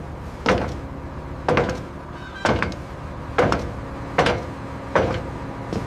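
A run of heavy knocks, about one a second, each with a short metallic ring, over a steady low hum.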